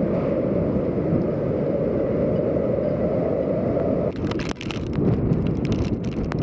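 Hurricane wind buffeting the microphone in a dense, low rush. About four seconds in it changes to gustier wind with many sharp crackles of driving rain striking the microphone.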